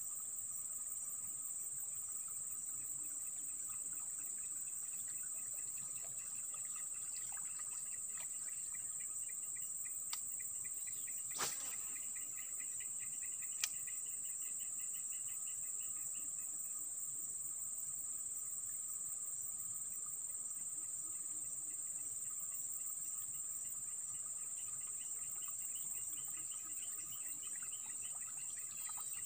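Steady high-pitched drone of insects. Stretches of rapid pulsing chirps come and go over it. A few sharp clicks sound around the middle.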